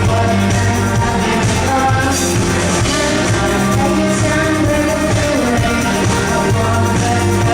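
Live electronic rock band playing a song with a singer, over a heavy steady bass line.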